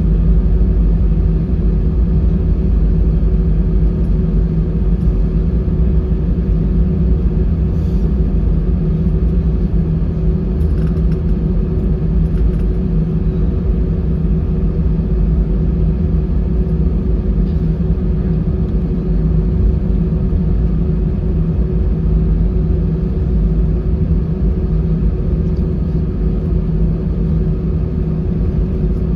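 Airbus A320-214 cabin noise on the ground before takeoff: the CFM56 jet engines running at low power, a steady low rumble with a constant hum.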